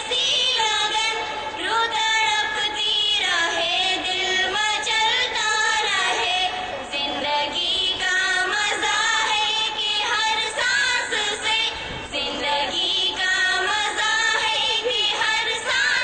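Three girls singing a melodic song together into a microphone, one continuous line of young female voices.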